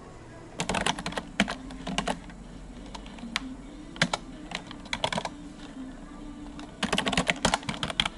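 Typing on a computer keyboard in bursts: a quick flurry of keystrokes in the first couple of seconds, a few scattered strokes midway, and a dense run near the end.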